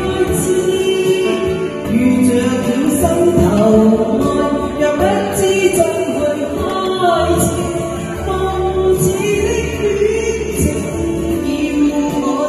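A woman singing a Cantonese pop duet into a karaoke microphone, amplified over the song's backing track.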